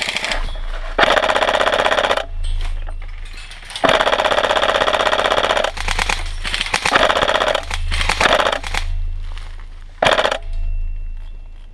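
Electric airsoft rifle, a tan SCAR-style gun, firing full-auto: several rapid rattling bursts, the longest close to two seconds, with short bursts between them.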